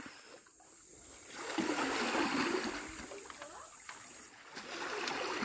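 Shallow seawater splashing and lapping at the shore, swelling about one and a half seconds in and easing off a couple of seconds later.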